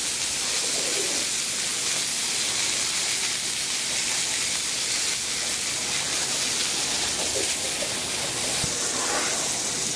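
Filet mignon steaks sizzling steadily as they sear on a hot flat-top griddle: a constant high hiss.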